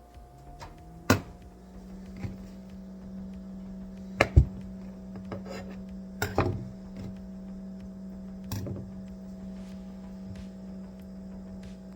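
A steady electric hum starts about a second in, rising briefly in pitch as it spins up and then holding level, like a small motor or appliance running. Several sharp knocks and clicks of kitchen things being handled sound over it, the loudest about four seconds in.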